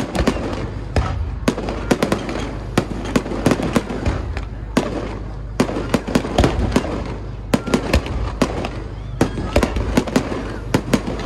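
Fireworks display: dozens of sharp bangs and crackles in quick succession over a steady low rumble, easing briefly a couple of times.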